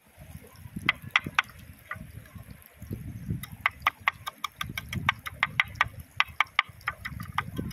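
Kitchen knife chopping shallot on a wooden cutting board: a few separate strokes about a second in, then a quick, even run of about six strokes a second through the second half.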